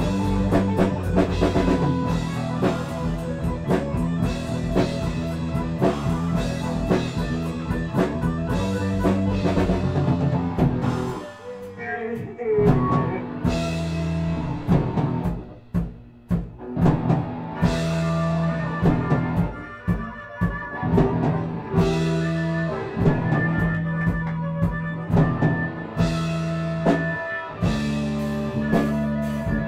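A rock band playing live: drum kit and electric guitar. Near the middle the music thins to a few separate hits and guitar notes for several seconds, then the full band comes back in.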